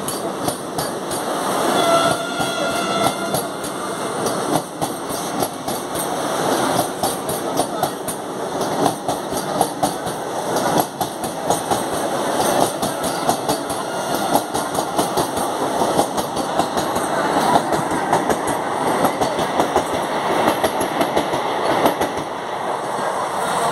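Vande Bharat electric trainset rolling past close by, a steady rush of noise from the passing coaches with frequent clicks of wheels over rail joints.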